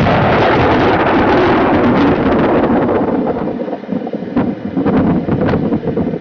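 Strong storm wind buffeting the microphone: a loud, steady rush with a few stronger gusts near the end, stopping suddenly.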